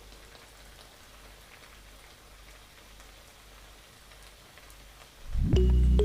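Faint sizzling of the gobi manchurian mixture in the pan after spring onion is added, with a few light clicks. Background music starts loudly near the end.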